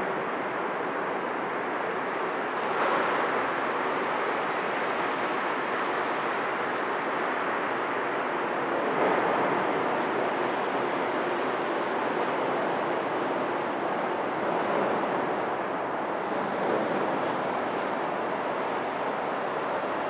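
Steady, even rushing background noise of a harbour waterfront, swelling slightly a few times. No distinct engine tone or horn from the passing container ship stands out.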